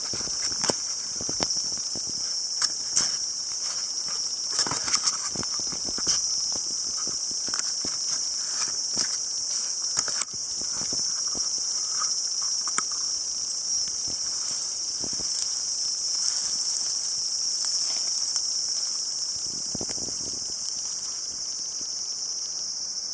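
Steady, high-pitched drone of a chorus of summer insects, with irregular rustles, scrapes and clicks of a gloved hand digging through leaf litter and soil for earthworms.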